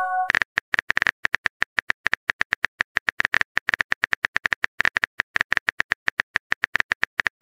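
Rapid keyboard typing clicks from a texting app, about eight to ten short clicks a second, as a message is typed letter by letter. At the very start, the last of a message-sent chime dies away.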